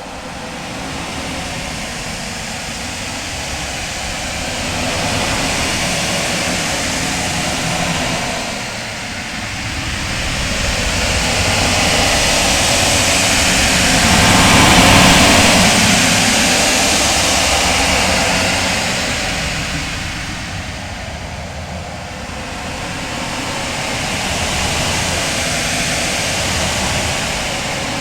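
Outer space ambience sound effect: a loud, rushing rumble of noise that swells and fades in slow waves. It builds to its loudest about halfway through, eases off, then swells again near the end.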